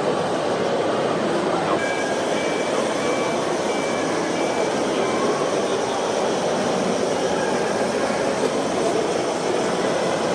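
Radio-controlled construction trucks running: the electric motors and gearboxes make a steady grinding whir. A reversing beeper sounds a run of short, evenly spaced high beeps about two seconds in, lasting a few seconds.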